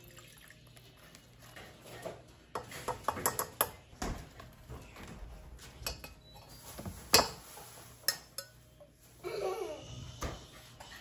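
A metal spoon and utensils clinking and knocking against an enamel saucepan while gravy is made, with a cluster of clicks about three seconds in and a sharp clink about seven seconds in.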